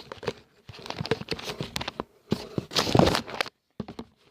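Close handling noise: rustling, crinkling and irregular knocks of things being moved and rummaged through, loudest about three seconds in, then briefly stopping.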